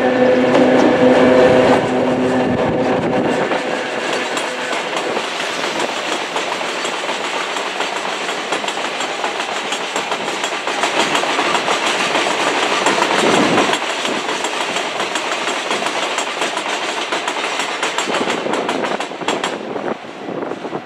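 Chichibu Railway ore freight train passing: the electric locomotive's steady hum for the first few seconds, then the clatter of a long string of loaded ore hopper wagons' wheels over the rail joints, dying away near the end.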